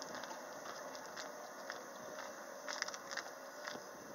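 Faint steady hiss inside a 115 series electric train car, with soft scattered clicks and crackles from footsteps walking down the aisle, bunched about three seconds in.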